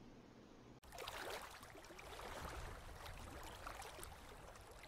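Faint room tone with a low hum for under a second, then an abrupt cut to a faint, steady rushing noise flecked with small trickling spikes, like running water.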